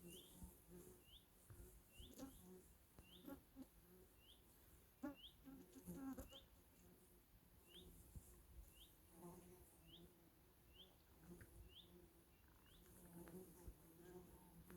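Faint natural ambience: a small bird repeats a short, high, rising chirp about once a second, while the swans give soft, low murmuring calls now and then.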